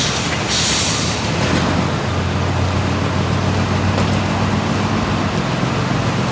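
Road traffic passing close by, with a heavy vehicle's engine humming steadily through the middle. A short hiss sounds about half a second in.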